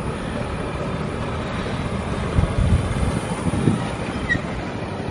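Wind blowing across the microphone: a steady low rumbling noise, with a few stronger gusts about halfway through.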